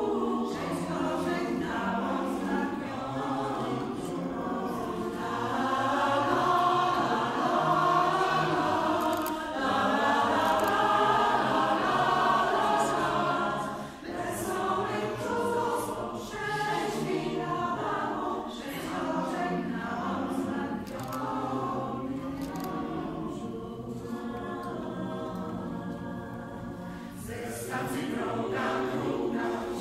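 Mixed choir of women's and men's voices singing a cappella, with full sustained chords; it sings louder for a stretch, then softer, and swells again near the end.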